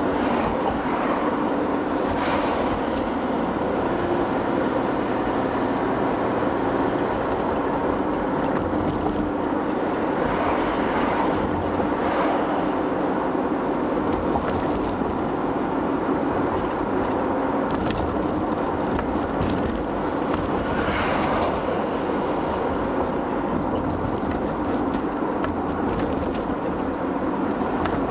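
Steady engine and tyre noise heard inside a moving car's cabin, with three brief swells as oncoming cars pass.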